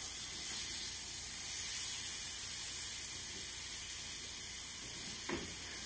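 Floured kasseri cheese frying in hot olive oil in a small skillet: a steady, high sizzle.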